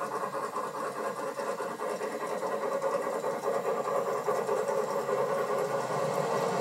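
Garden-scale model train running along its track, a steady mechanical running sound of motor and wheels that grows a little louder toward the end.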